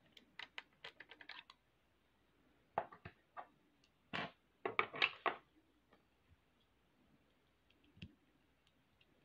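Plastic LEGO bricks clicking and rattling as a LEGO X-wing model is handled and its parts moved: quick clusters of sharp clicks in the first second or so and again around the middle, then a single soft knock near the end.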